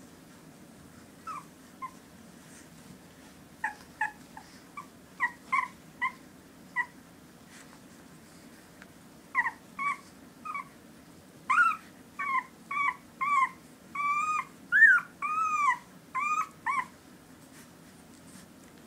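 17-day-old puppies whimpering and squeaking while they nurse: short high-pitched squeaks, a few at first, then coming quicker and louder about halfway through, with a few longer rising-and-falling whines near the end.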